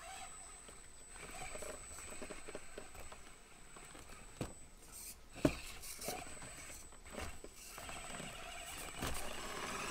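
Micro RC crawler (Axial SCX24) creeping over logs and rocks: a thin, high motor and gear whine with tires and plastic scraping and clicking on the terrain, and one sharp knock about halfway through.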